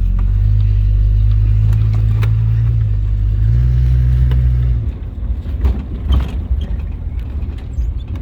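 AMC 199 cubic-inch inline six in a 1967 Rambler American accelerating hard from a stop, pulling cleanly with no off-idle bog now that the cracked carburetor spacer's vacuum leak is fixed. The engine note rises for about five seconds, then drops off to quieter, steady running.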